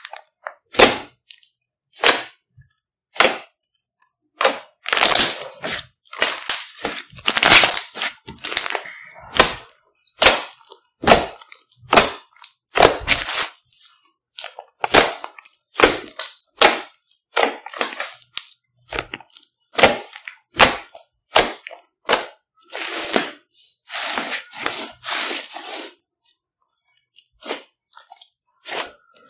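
Thick pink clay-mixed slime squished, pressed and folded by hands: an irregular run of short sharp pops and squelches, with a few longer, denser stretches and brief quiet gaps between.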